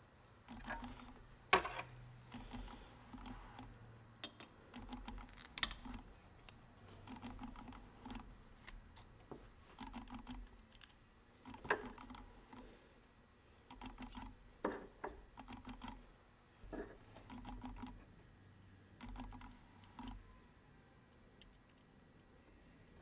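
Scattered small clicks, taps and knocks of a screwdriver and metal and plastic carburettor parts as a 50cc scooter carburettor is worked loose and handled, with a few sharper knocks among them.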